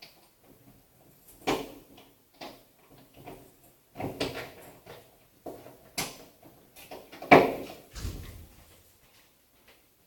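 A series of irregular knocks and clatters, a second or so apart, the loudest about seven seconds in, followed briefly by a low rumble.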